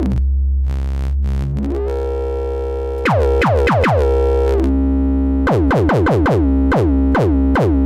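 Moog DFAM analog percussion synthesizer sounding long-decaying notes with oscillator 2 hard-synced to oscillator 1: a metallic tone whose overtones sweep downward on each hit while the low pitch stays locked and steady. A few hits come about three seconds in, then a quicker run of hits through the second half.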